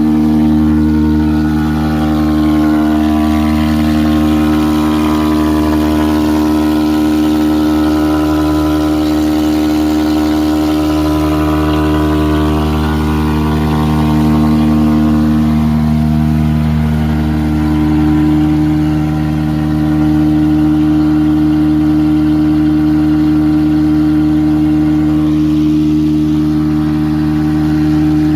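Engine of a septic tank cleaning truck running steadily, with small dips in speed now and then.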